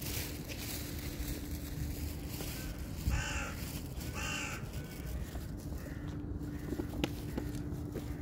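A crow cawing twice, about a second apart, over a steady low hum.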